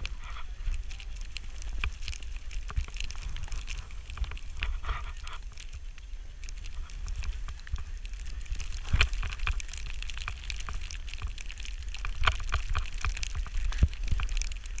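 Skis sliding and scraping over packed snow at speed, a continuous crackling hiss, with steady wind rumble on the camera's microphone. Sharper scrapes stand out about nine seconds in and again near the end, as the skis turn.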